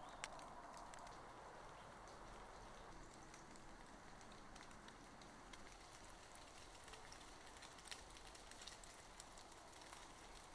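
Near silence: faint woodland ambience with scattered soft ticks and no steady rhythm.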